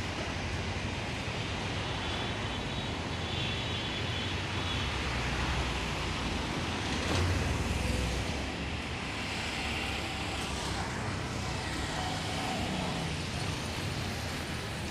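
Steady road traffic noise, a continuous hum and rush that swells briefly about seven to eight seconds in.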